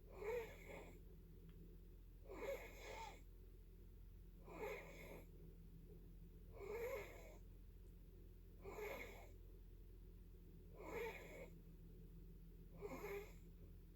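Snoring in a steady rhythm: a short snore about every two seconds, seven in all, each under a second long.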